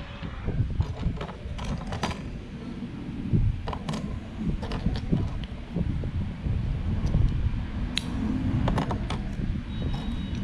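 Plastic parts of a Blokees Optimus Prime model kit being handled and fitted, with scattered clicks and creaks over a steady low rumble of handling noise.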